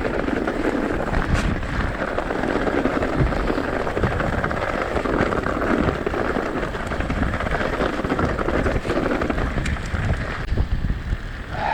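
Mountain bike descending fast over wet, rough ground: wind buffeting the camera microphone over a steady rush of tyres on the wet trail, with small rattles and clicks throughout.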